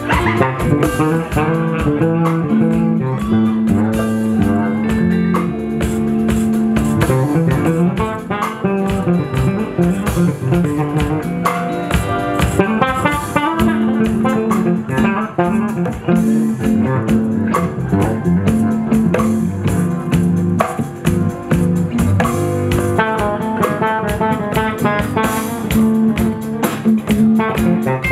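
Live band music featuring a six-string electric bass plucked fingerstyle in melodic runs, with a drum kit and electric guitar behind it.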